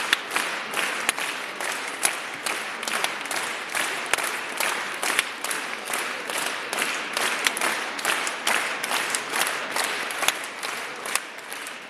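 A crowd applauding: dense, steady clapping from the audience and performers in a concert hall, easing slightly near the end.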